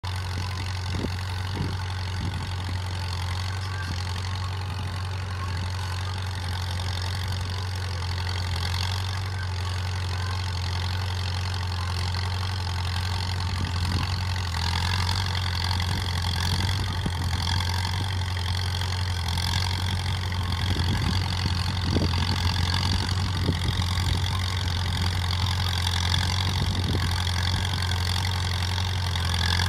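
Fiat 451C crawler tractor's diesel engine running steadily while working on a steep slope, a deep even drone. Short knocks and clatter come in from about twenty seconds in, and the sound grows a little louder in the second half.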